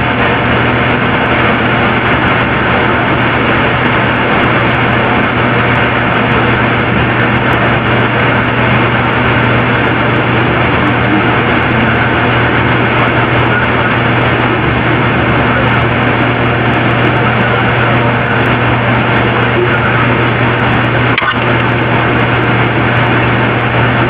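Steady low hum under a loud, even hiss, unchanging throughout, with a faint click about 21 seconds in.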